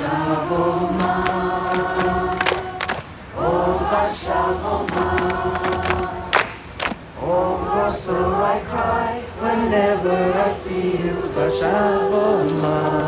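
A group of voices singing together in held chords, in phrases of a few seconds with short breaths between. A few sharp clicks fall in the breaks.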